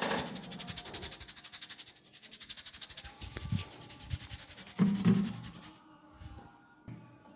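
Head massage: fingers rubbing briskly through the hair and over the scalp in a fast, even rhythm of rustling strokes, which stops about three seconds in. A couple of dull thumps come about five seconds in and are the loudest sounds, followed by quieter light handling.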